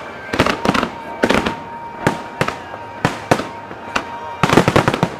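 Aerial fireworks bursting in a string of sharp bangs, spaced under a second apart and coming in a rapid cluster near the end. A steady held tone runs through the middle.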